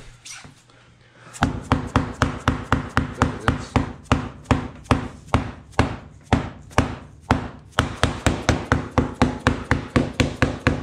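Red rubber mallet tapping laminate floor planks in quick, even strikes, about four a second, starting about a second and a half in, knocking the boards together at a seam.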